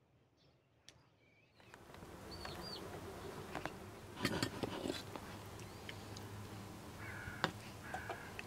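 Outdoor ambience: a few short bird chirps over a steady low background, with scattered light clicks and knocks, a small cluster of them about halfway through.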